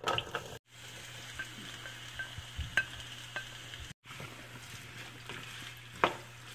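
Sliced onions frying in oil with a steady sizzle, stirred with a black spoon that knocks and scrapes against the pan several times, the loudest knock near the end.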